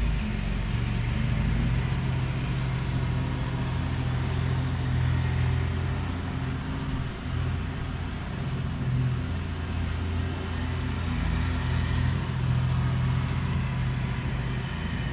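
Kandi Cowboy / Innovator dump bed actuator's electric motor running steadily, driving its gearing to move the arm.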